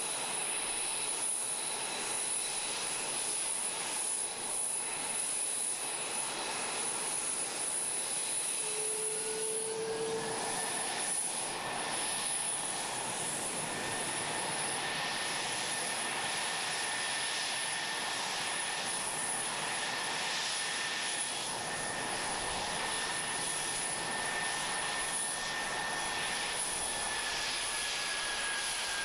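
Jet engines of a parked F-22 Raptor running on the ground: a steady rush with a high whine. A second whine rises about ten seconds in, holds, then sinks slightly near the end.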